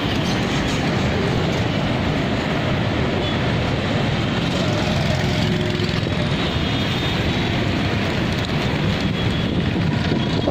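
Steady low rumble of outdoor background noise, even and unbroken, with no distinct calls or knocks standing out.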